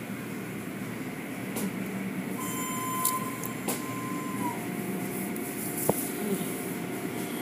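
Automatic tunnel car wash running: a steady noise of cloth brushes, water spray and motors working over a car. A faint steady tone sounds from about two and a half seconds in and drops lower about halfway through. A few sharp clicks or knocks come through, the loudest about six seconds in.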